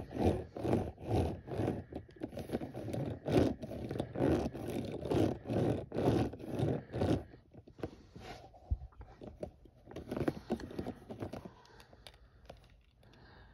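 Toy monster truck's rubber tires rolled back and forth across a hard surface by hand, a scraping stroke about twice a second. About seven seconds in the rolling stops, leaving quieter handling noises and light clicks as the toy is picked up.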